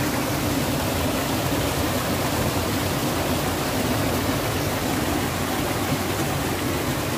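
Steady rushing of flowing water, even in loudness.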